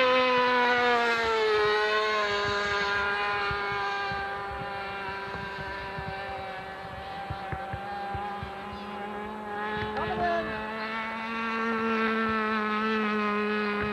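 Rossi .60 glow engine of a radio-controlled F-18 model with a pusher propeller, buzzing at high revs in flight. Its pitch drops over the first few seconds and it grows fainter, then it gets louder and slightly higher again near the end.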